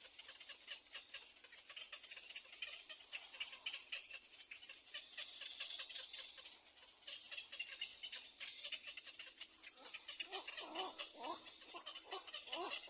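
Nestling birds calling: a rapid, dense clicking chatter throughout, joined in the last few seconds by a run of short, lower calls about three a second.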